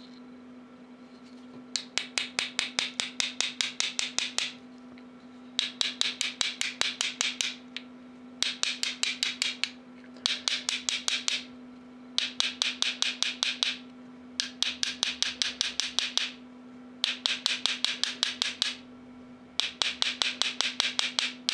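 Small hammer tapping lightly and quickly, about five taps a second, metal on metal, on a brass fitting on the shaft of a small electric motor; seven runs of taps with short pauses between them.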